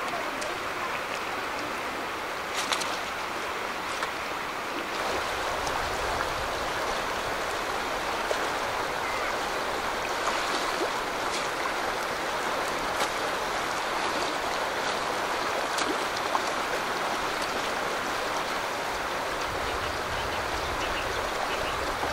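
Shallow, fast river rushing over a stony bed: a steady wash of water noise, with a few brief clicks and knocks here and there.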